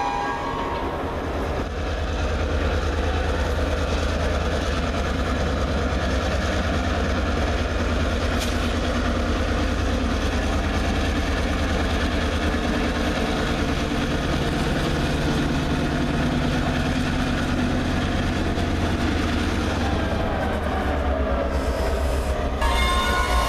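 Norfolk Southern diesel locomotive running as it rolls slowly past close by, hauling open hopper cars, with a steady low engine drone.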